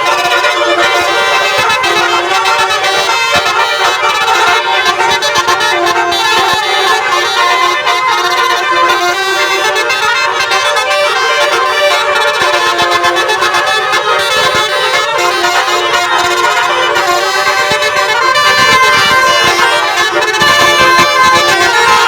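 Basuri 'telolet' musical bus horns playing melodies without a break, several reedy horn notes held together and changing pitch, a little louder near the end.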